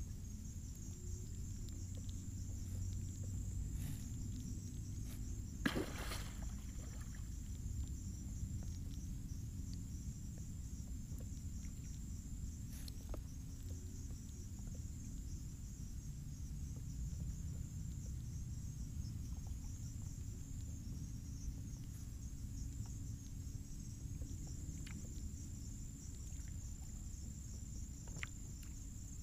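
Night ambience on the water: a steady high-pitched insect chorus over a low rumble of water against the kayak hull, with one sharp knock about six seconds in.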